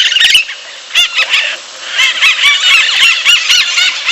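Parakeet chattering: quick, high-pitched, arched chirps, a short burst at the start, a few more about a second in, then a rapid, continuous run of chirps from about two seconds in.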